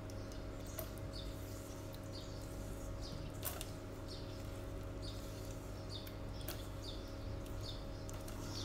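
Silicone spatula stirring melting chocolate and butter in a stainless steel bowl, giving short high squeaks against the steel every second or so, over a steady low hum.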